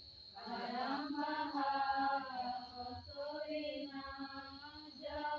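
Voices singing a Karam dance song in long, held notes that glide up and down, in phrases that start about half a second in and again near the end.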